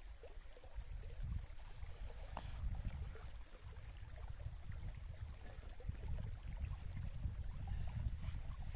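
Wind buffeting the microphone: a gusting low rumble that rises and falls, over a faint trickle of shallow running water.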